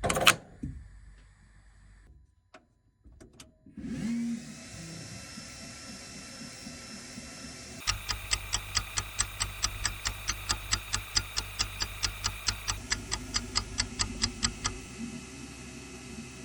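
An engraving machine running: its hum starts about four seconds in, and from about eight seconds a regular ticking of about four ticks a second rides over a low hum, stopping near fifteen seconds as the head works back and forth. A short pop sounds at the very start.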